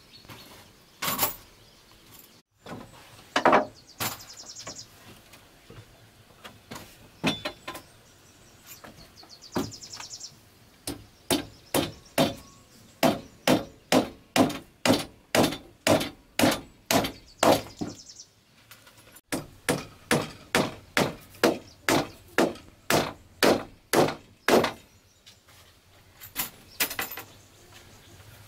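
Hammer driving nails into wooden planks and logs: a few scattered blows at first, then steady runs of about two strikes a second, broken by a short pause about two-thirds of the way through.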